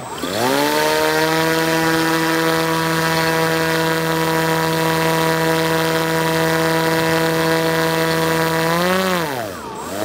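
Remote-control fishing boat's air propeller and motor running, a loud steady hum with a clear pitch. It spools up in the first second and holds steady. Near the end it rises briefly, winds down almost to a stop, and starts climbing again.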